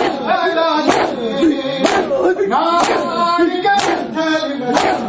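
A group of men chanting a noha lament in unison, with rhythmic chest-beating (matam): hands slapping bare chests together about once a second.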